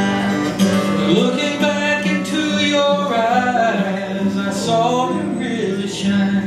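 Two acoustic guitars playing a strummed instrumental passage of a folk song, with a wavering melody line bending in pitch above the chords in the middle of the passage.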